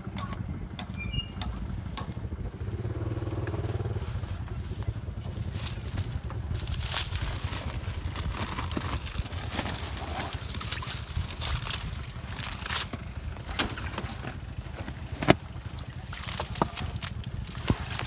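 Plastic bags and a car's rear seat being handled: crinkling plastic and scattered sharp clicks and knocks, one loud click about 15 seconds in, over a steady low rumble.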